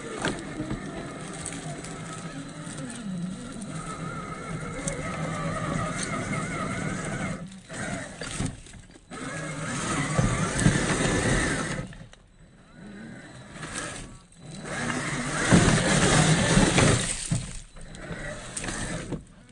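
1/10-scale RC crawler's 550 electric motor and two-speed transmission whining as it climbs rock, the pitch wavering with the throttle. Louder rough bursts about ten and fifteen seconds in as the tyres scrabble and the chassis scrapes over the rock, with short pauses between.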